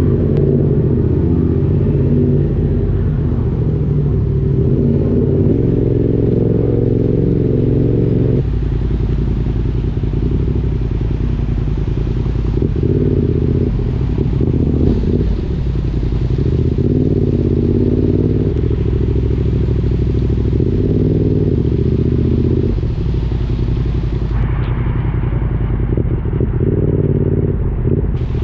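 Motorcycle engine running while riding, its note stepping up and down in pitch several times as the speed changes.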